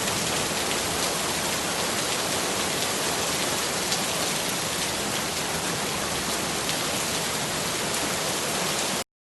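Steady rain falling, a dense even hiss of many drops, which cuts off suddenly near the end.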